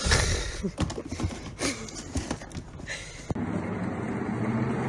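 Irregular knocks and scuffling, then, about three seconds in, the steady rumble of a cat exercise wheel spinning under a running cat.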